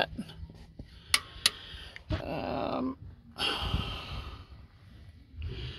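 A man breathing heavily and giving a short grunt while working under a vehicle, with two sharp clicks a little after a second in.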